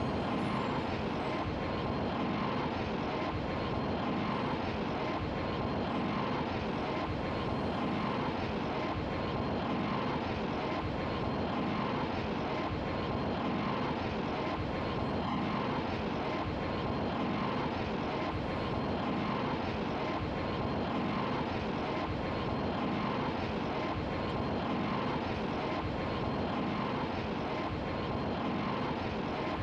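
Airbus A220-300 airliner on approach, its Pratt & Whitney PW1500G geared turbofan engines giving a steady, even engine noise with a faint steady whine in it.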